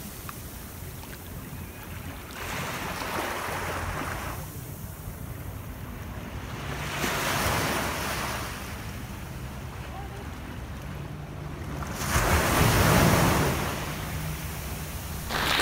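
Ocean surf: waves washing in, three swells of noise rising and falling about every five seconds over a steady low rumble.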